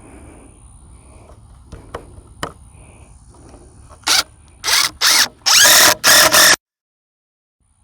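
Power drill driving long 3.5-inch Torx screws into a wooden post: a few light taps, then five short, loud bursts of the drill spinning the screw in, one rising in pitch as it spins up. The sound cuts off suddenly near the end.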